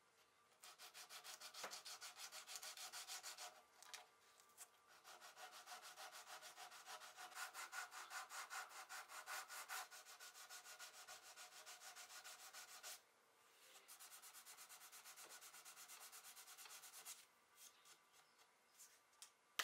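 Sanding block rubbing by hand on a mahogany veneer patch at the edge of a wooden drawer front: faint, quick back-and-forth strokes. They come in three runs, with short pauses about four and thirteen seconds in, and stop a couple of seconds before the end.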